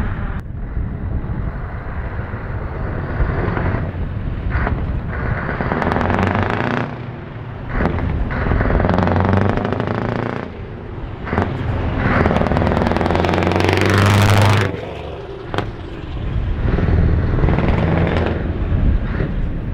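Scania 4-series truck engines pulling hard in long, loud surges, the sound dropping away briefly between pulls as the gears are changed, with a few sharp cracks.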